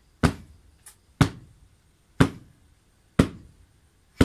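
Hard hand slaps, one about every second, five in a row, each a sharp crack with a low thud and a short echoing tail.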